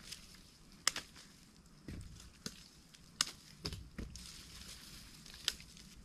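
Bolo knife chopping the root tails off freshly dug cassava tubers: a handful of sharp, irregularly spaced cuts.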